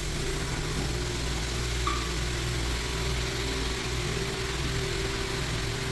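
Recoat Vibe floor screening machine running steadily as a hum, abrading the old finish on a hardwood floor ahead of a recoat.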